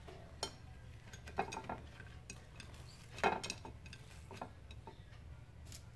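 Light, scattered taps and clicks of hot corn-masa sopes being pinched into shape and set down on a ceramic plate, the loudest knock about three seconds in, over a low steady hum.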